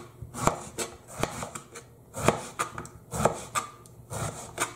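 Kitchen knife slicing an aubergine into strips on a plastic cutting board: a series of sharp knocks as the blade meets the board, somewhat under two a second.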